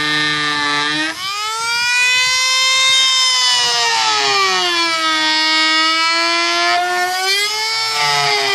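Dremel rotary tool whining continuously as it cuts through the plastic deck of a kayak between a ring of drilled holes. Its pitch sags as the bit bites into the plastic and climbs again as it frees up, rising about a second in, falling off after three seconds and rising again near the end.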